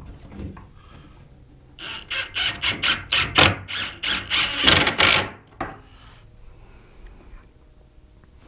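Milwaukee cordless impact driver hammering a 3-inch construction screw into a 2x4 frame, in a run of rapid rattling impacts lasting about three seconds from about two seconds in.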